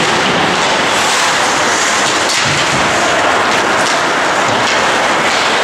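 Steady, loud noisy hiss of ice-rink ambience during live hockey play, with a few faint knocks about two and a half and four seconds in.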